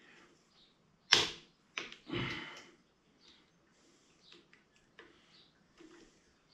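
Screwdriver working a tight T25 Torx screw on a Harley-Davidson Road King's handlebar switch housing: a sharp click about a second in, then a short rasp and a few small ticks. The screw is tight because it was fitted with Loctite.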